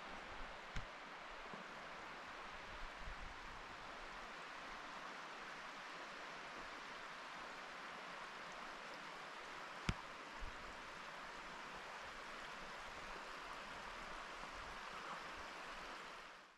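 Steady, even outdoor hiss of wind and water ambience, with a few faint clicks about a second in and again near the middle; it fades out near the end.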